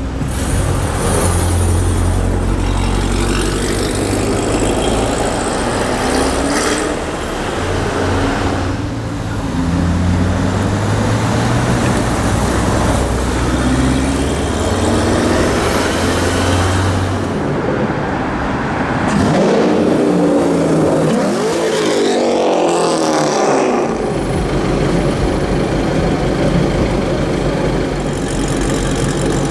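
Car engines in street traffic: a deep engine note runs steadily for the first half, then engine pitches rise and fall as cars rev and drive past.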